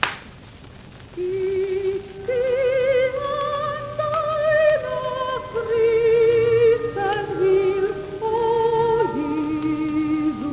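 Old 1948 shellac record playing a solo soprano singing with wide vibrato, a slow melody that climbs and then falls back, after a sharp click and a brief near-pause at the start. Thin clicks and surface crackle of the shellac disc run under the singing.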